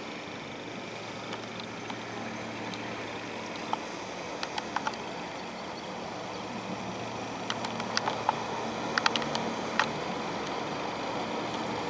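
Passenger canal boat's engine running steadily as the boat pulls out of a lock, a low hum that slowly grows louder. Scattered sharp clicks and taps come through, more of them in the second half.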